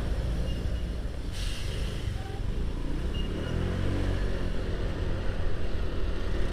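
Motorcycle engine running slowly in a traffic jam, surrounded by the engines of other vehicles, with a short hiss about a second and a half in.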